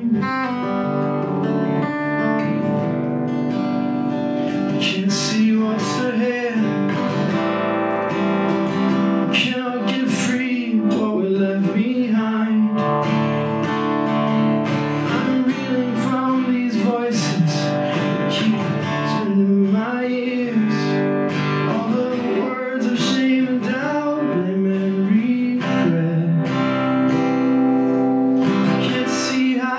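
Acoustic guitar strummed, with a man singing over it: a live song performance.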